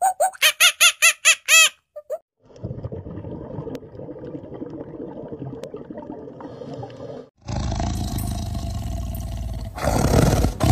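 A rapid series of hooting calls, about five a second, stops after two seconds. A low, murky underwater rumble follows. About seven seconds in, lions begin growling and roaring as they tussle, loudest near the end.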